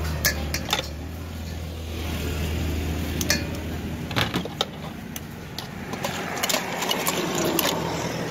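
Metal spoon clinking and scraping against a stainless steel bowl as a spicy seafood salad is tossed: short, irregular clinks, more frequent in the second half. A steady low hum runs underneath and fades about halfway through.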